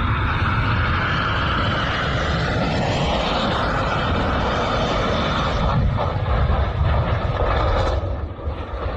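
Airplane engine noise, a loud steady rushing drone that thins out briefly about eight seconds in.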